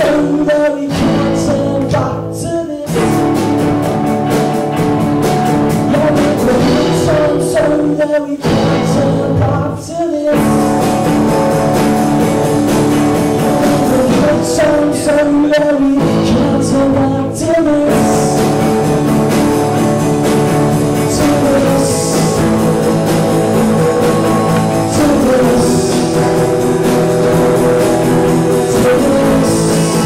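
A small live band playing a song: acoustic guitar and drum kit, with a sung vocal.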